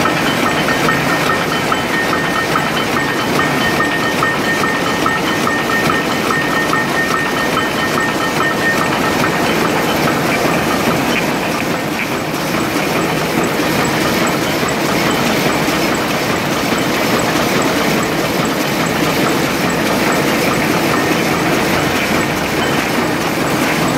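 Rapier weaving loom running at speed: a loud, steady, fast mechanical clatter that keeps an even rhythm throughout.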